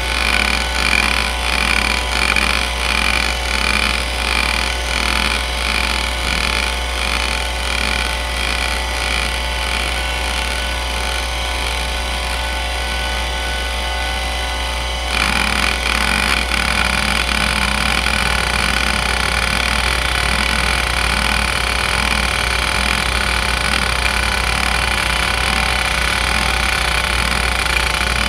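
Seagate ST3211A 210 MB IDE hard drive (a relabelled Conner CFS210A), its spindle running with a steady hum while the head actuator seeks in hdmotion's sweep patterns. For the first ten seconds or so the seek noise swells and fades about once a second, then it eases off. About fifteen seconds in it switches suddenly to a louder, continuous chatter of rapid seeks.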